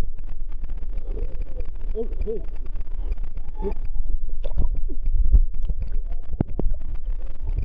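Rushing water heard through a waterproof camera's housing as it slides down a water-covered rock, a dense muffled rumble with many sharp knocks of the camera against the rock and the water.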